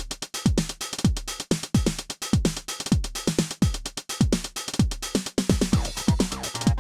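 Behringer RD-9 analog drum machine playing a techno beat at 128 bpm: a four-on-the-floor bass drum with a falling pitch sweep on each beat, about two a second, over hi-hats and other percussion hits.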